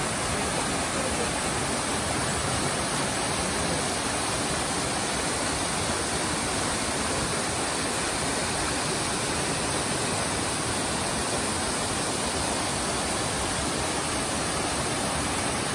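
Steady rushing of water from a rocky mountain stream cascading over boulders below a waterfall.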